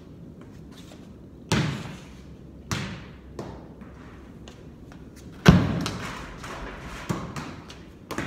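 A football thudding and bouncing on a concrete floor: half a dozen dull thuds that echo around a large barn, the loudest about five and a half seconds in.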